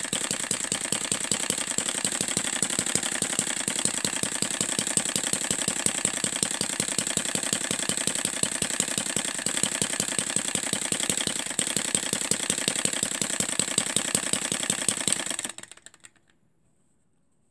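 Miniature single-cylinder four-stroke model engine running fast and steadily, a rapid even beat of firing strokes with mechanical clatter. About fifteen seconds in it is shut off and dies away to silence within a second.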